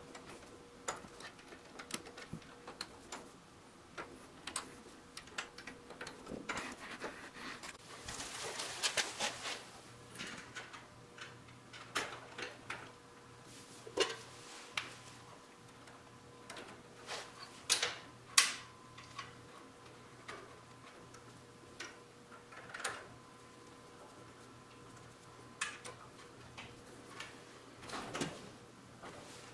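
Scattered light clicks and metallic taps of a steel brake cable end and roller chain being handled and fitted into a small block by hand, with a short rustling stretch about a third of the way in. Two sharper clicks a little past halfway are the loudest, over a faint steady hum.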